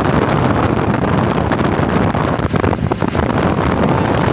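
Steady wind rushing over the microphone of a moving motorcycle, with the ride's engine and road noise underneath.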